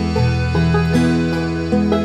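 Background music on a plucked string instrument, with pitched notes changing every fraction of a second.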